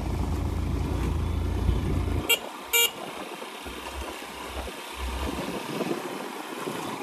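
Motorcycle engine running in second gear on a rough track, with two short horn toots a little over two seconds in; after the toots the engine's low rumble drops off and comes and goes.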